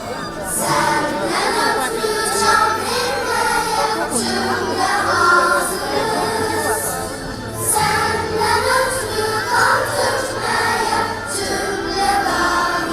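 A choir singing a song to music.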